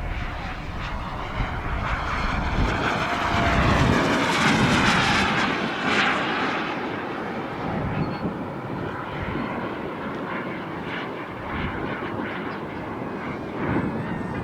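Hummingbird RC model jet's small turbine engine whining as the jet flies past, swelling to its loudest about four to six seconds in and then easing off. Low wind rumble on the microphone comes and goes underneath.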